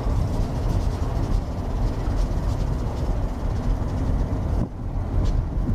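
Steady low rumble and rushing noise of a moving vehicle, heard from on board, dipping briefly near the end.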